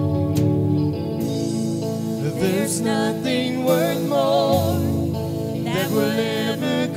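Live church worship music from a slow song: held instrumental chords, with a singer coming in about two seconds in, singing with a wide vibrato.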